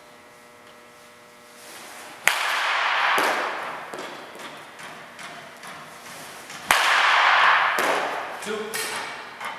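Baseball bat hitting pitched balls in a batting cage: two crisp hits about four and a half seconds apart, each followed by about a second of rushing noise, with a few lighter knocks near the end.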